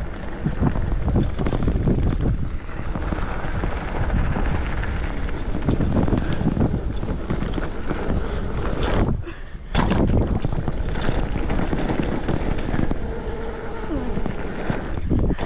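Wind buffeting the microphone of a camera on a downhill mountain bike riding a trail, a dense steady rush that briefly drops away about nine seconds in.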